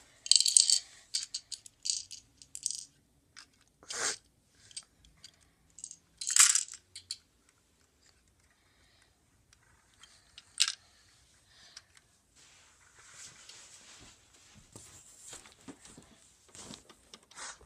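Hard plastic Lego parts of a Lego City front-loader garbage truck clicking and rattling as it is handled, in short bursts, loudest in the first several seconds with a few sharp single clicks. Fainter scattered rustling follows near the end.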